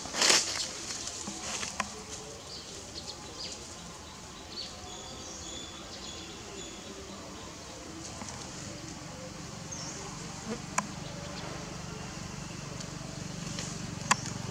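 Forest ambience: faint, scattered bird chirps over a steady background, with a few sharp clicks. A brief loud burst comes right at the start.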